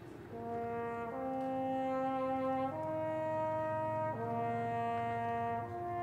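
Marching band brass playing a slow series of held chords, the chord changing about every second and a half, coming in about a third of a second in.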